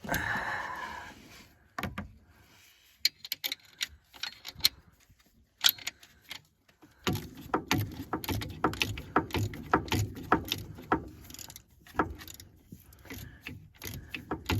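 Icon 3/8-inch drive 90-tooth ratchet and metal parts clicking and clinking while an alternator is bolted on. There are scattered clicks at first, then from about halfway a dense run of clicking over a low rumble.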